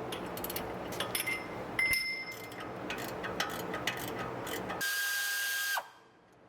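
Metal clicks and clinks of a ratchet wrench and tools working the 13 mm brake caliper bolts, some with a short metallic ring. Near the end comes about a second of steady whirring that drops in pitch as it stops, then the sound cuts to near silence.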